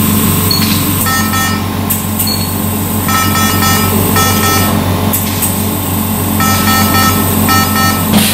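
A steady low machine hum, with electronic alarm beeps from an ICU ventilator sounding in several short spells as its touchscreen is worked.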